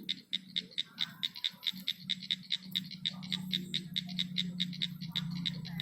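A calling night animal making an even train of sharp clicks, about five a second, over a steady low hum.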